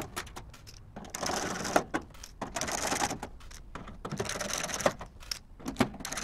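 Screwdriver backing screws out of a toaster oven's sheet-metal back panel: quick clicks and gritty metal-on-metal scraping in several spells of about a second each.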